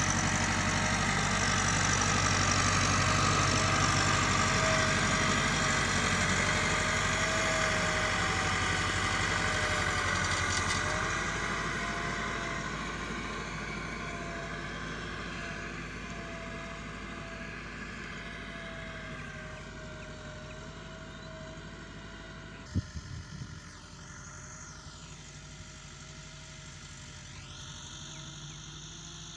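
Massey Ferguson 385 tractor's diesel engine running steadily as it pulls a laser land leveller, loud at first and then fading gradually as the tractor moves away. There is a single sharp knock about three-quarters of the way through.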